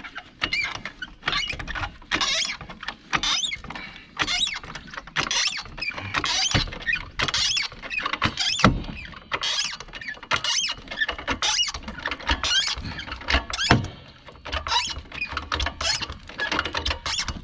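Car jack being worked to lift a car, squeaking at each stroke in a steady rhythm of about one to two strokes a second.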